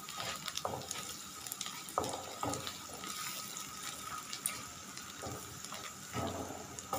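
Sliced onions sizzling in oil in a karahi, stirred with a wooden spatula that scrapes and knocks against the pan a few times.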